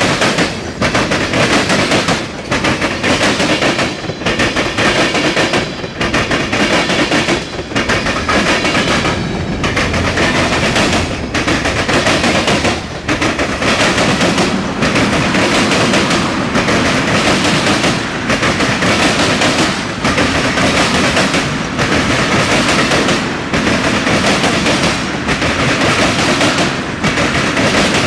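Freight train cars rolling past close by: a loud, continuous rattle of steel wheels on the rails with rapid clanks and knocks.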